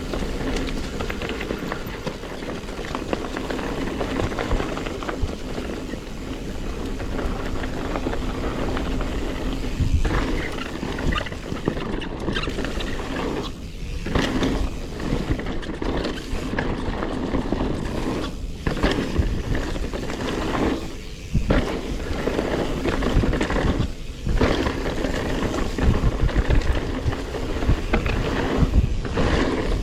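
Specialized Stumpjumper Evo Alloy mountain bike ridden down rocky singletrack: tyres rolling over dirt and rock, with the bike rattling and knocking over bumps and a few brief lulls.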